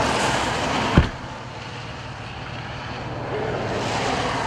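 Strong wind rushing over the microphone, with a steady low engine hum underneath, typical of a chase vehicle idling. A single sharp low thump about a second in, after which the rush drops back and then builds again.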